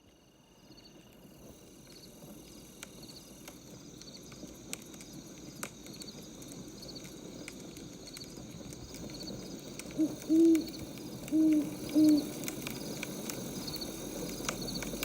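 Ambience of a crackling wood fire with crickets chirping, slowly fading in. About ten seconds in, an owl hoots four times in quick succession.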